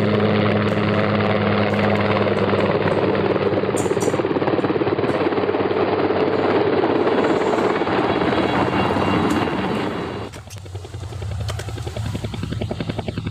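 A motor running steadily with a low, even hum. About ten seconds in it becomes quieter and rougher.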